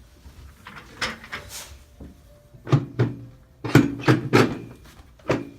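Chiropractic drop table being reset: a run of sharp clunks and knocks, a few softer ones about a second in, then about six louder ones in the second half.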